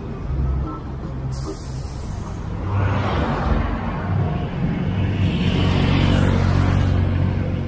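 Street traffic: a motor vehicle passes, building from about three seconds in and loudest near six seconds, over a steady low rumble.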